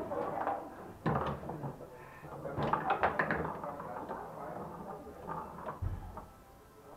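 Foosball game in play on a Mascher table: the ball struck by the rod figures and the rods clacking and sliding, in bursts of quick knocks, the busiest run around three seconds in, with a dull thump near the end.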